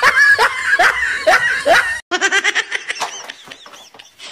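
A person laughing in short repeated syllables, about two a second, then after a brief break about two seconds in, a quicker run of laughs that fades toward the end.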